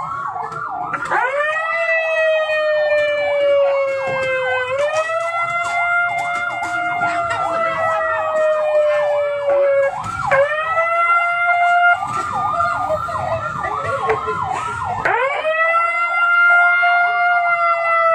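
Ambulance siren sounding continuously: a fast warbling yelp of about four cycles a second, over a long tone that sinks slowly and swoops back up every few seconds.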